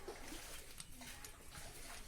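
Pet parrot at its water, making faint noisy rustles twice.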